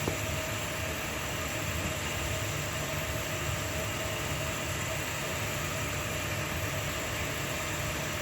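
Steady mechanical running noise with a faint constant whine, unchanging throughout.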